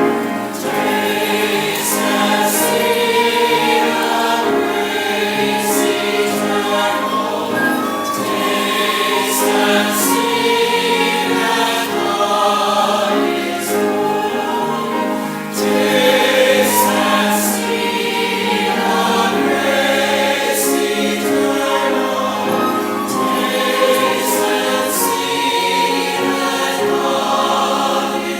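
A church choir singing, with sustained voices in several parts and words audible as crisp consonants.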